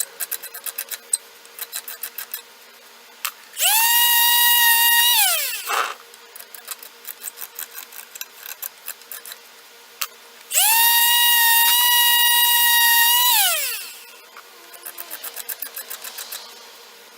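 Quarter-sheet palm sander with 100-grit paper switched on in short runs, twice winding up to a steady high whine and winding down again, sanding old felt-pad adhesive off wooden chair legs. Between runs there are quick light ticks and scrapes.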